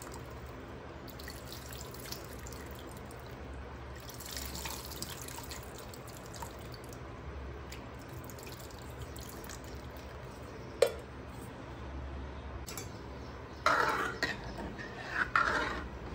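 Tamarind water trickling and dripping into an aluminium kadai of vegetables as the soaked tamarind pulp is squeezed out by hand over the pan. There is one sharp clink about 11 seconds in, and near the end a louder stretch of a steel ladle stirring and scraping through the liquid in the pan.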